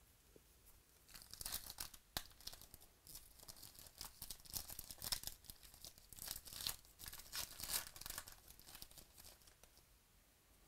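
A trading-card pack wrapper being torn open and crinkled by hand, in a run of crackly tearing and crumpling bursts that begins about a second in and dies away near the end.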